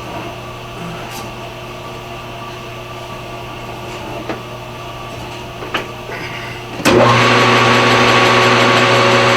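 A shop machine hums quietly under a few light clicks of parts being handled, then about seven seconds in a metal lathe's motor is switched on and runs, much louder, with a steady whine.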